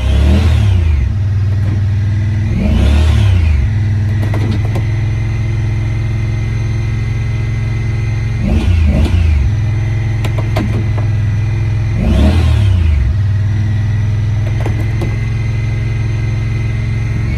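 Honda Pioneer 1000 side-by-side's twin-cylinder engine idling steadily, with the throttle blipped about four times, each rev rising and dropping back to idle within a second or so. A steady high whine runs under it.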